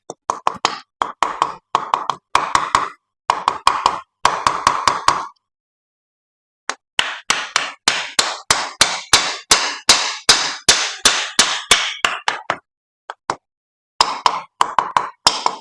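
Repeated hammer blows on an engine's cylinder liner, tapping it back down into the block to seat it. The strikes come quickly, several a second, in three runs with pauses about 5 seconds in and about 13 seconds in.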